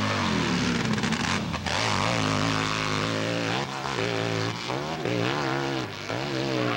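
Pro hillclimb motorcycle engine running hard under throttle, its pitch rising and falling again and again as the rider works it up the rutted hill.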